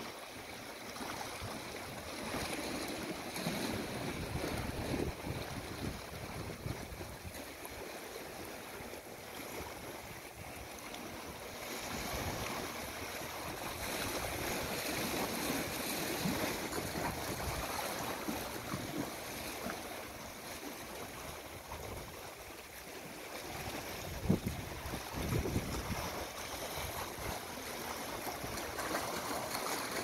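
Small sea waves washing and lapping among shoreline rocks, rising and falling in slow surges, with one brief louder burst about three-quarters of the way through.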